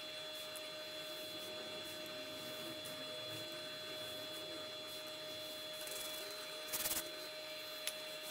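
Steady electrical hum with a thin high whine, under quiet room tone. A short scraping clatter about seven seconds in, and a small click just after.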